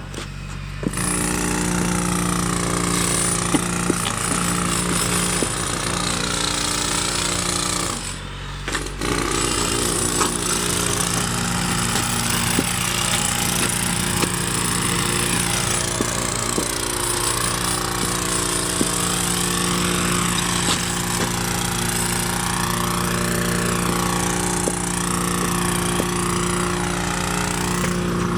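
Steady machine noise: a running motor's hum with a fast, even rattle underneath, cutting out briefly twice.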